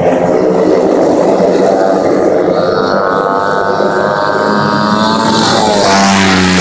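250-class flat-track racing motorcycles running hard on the dirt oval, their engine note held high and fairly level. Music comes in near the end.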